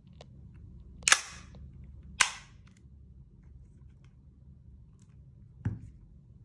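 Cybergun Desert Eagle L6 .50AE gas-blowback airsoft pistol fired twice without a BB, about a second apart: two sharp cracks, each with a short fading tail as the slide cycles. A dull knock follows near the end.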